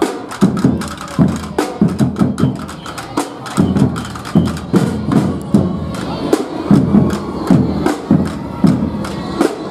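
A street drum group playing waist-slung snare drums together in a fast, driving rhythm, with heavier accented beats about twice a second.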